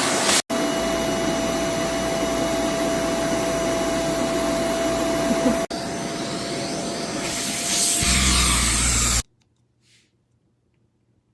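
Bissell Zing bagless canister vacuum cleaner running with a steady whine over its rushing air, breaking off for an instant twice. About eight seconds in its sound gets deeper, and a little after nine seconds it cuts off suddenly.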